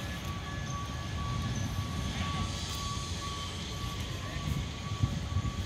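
Outdoor background of a steady low rumble, with a faint high electronic tone beeping on and off throughout.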